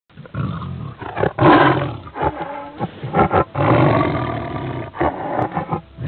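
Tiger roaring, a series of about six loud, rough calls with short gaps between them.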